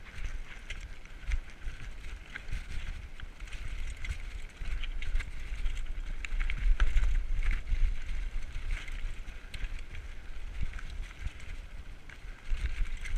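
Diamondback Recoil 29er mountain bike riding fast over a rocky dirt trail: tyres crunching on loose rock and gravel, the bike clattering and rattling over the bumps, with a low rumble on the camera microphone.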